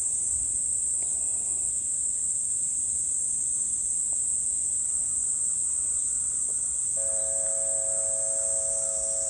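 Steady, high-pitched drone of insects. About seven seconds in, a sustained tone of several held notes comes in from the outdoor disaster-prevention loudspeakers as the chime broadcast opens.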